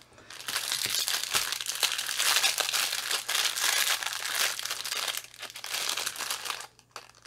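Clear plastic bag crinkling as a roll of small bagged diamond-painting drills is picked up and turned over in the hands. It stops shortly before the end.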